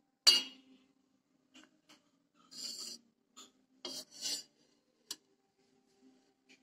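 Steel spoon clinking and scraping against a steel bowl while scooping butter out of buttermilk: one sharp clink about a third of a second in, then several short scrapes and taps. A faint steady low hum underneath.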